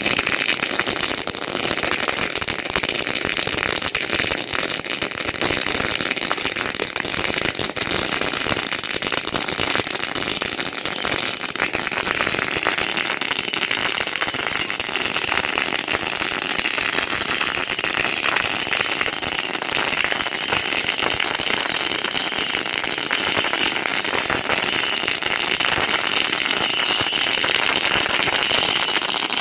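Fireworks going off: a continuous hissing crackle made of many small pops.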